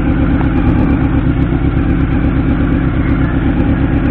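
Honda CB-1's 400cc inline-four engine idling steadily, with no revving.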